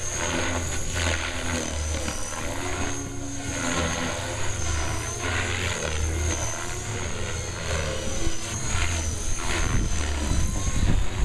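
Compass Atom 500 electric RC helicopter flying aerobatics: its rotor blades whoosh in surges that rise and fall as the pitch changes, over a steady high whine.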